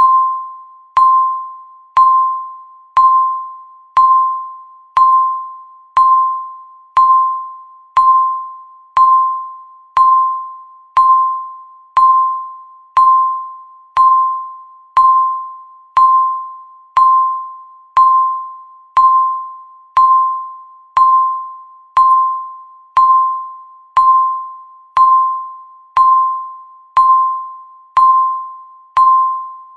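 Countdown timer's tick sound: a short, clear, bell-like tone struck once a second, each note fading quickly before the next.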